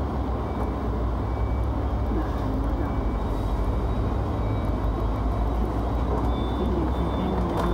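Steady low hum and rumble heard inside a Hong Kong double-decker electric tram standing still, with the drone of street traffic around it.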